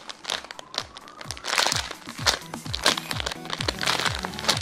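Clear plastic bag crinkling in irregular crackles as the squishy toy inside it is squeezed, over background music with a steady thumping beat.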